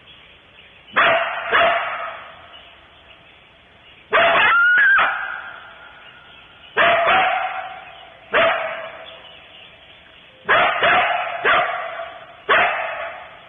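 Coyote barking, a series of sharp barks with long echoing tails. One about four seconds in is drawn out into a rising yip.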